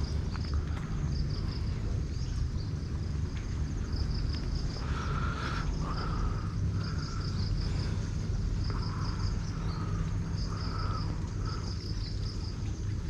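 Insects chirping in quick, high, pulsed trains that repeat every second or so, over a steady low hum, with short lower-pitched calls coming and going through the middle.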